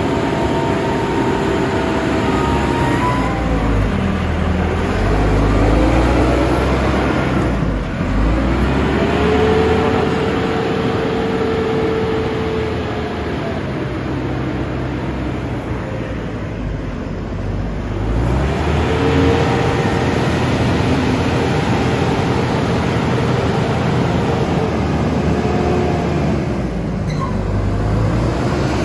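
A JLG telehandler's diesel engine runs under load while the boom is worked and the machine moves. The engine revs up and settles back several times.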